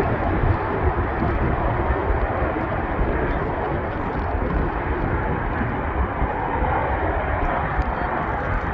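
Aircraft engine noise: a steady, even drone with a deep rumble underneath that holds level throughout.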